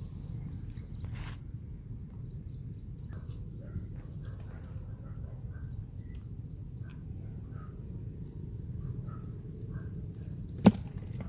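Steady low outdoor background noise with faint, scattered high chirps, and one sharp click near the end.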